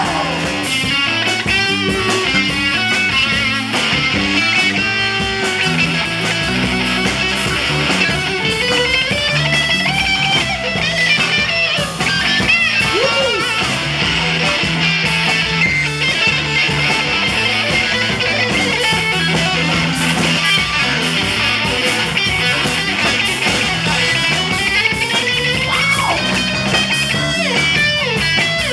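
Live rock band playing an instrumental break: lead electric guitar plays a melodic line full of bent notes over bass guitar and a steady drum kit beat.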